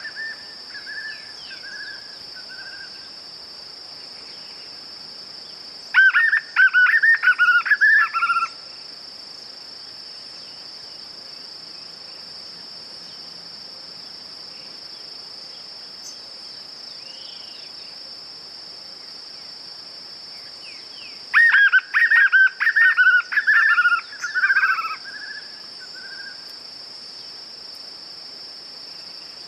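White-eared puffbird (João-bobo) singing: two bursts of rapid, down-slurred whistled notes, about six seconds in and again about 21 seconds in, each lasting two to three seconds. Between them a steady high insect drone continues.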